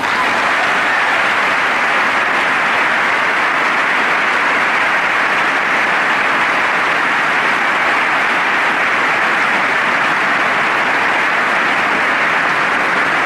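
A large audience applauding: dense, even clapping held at a steady level throughout.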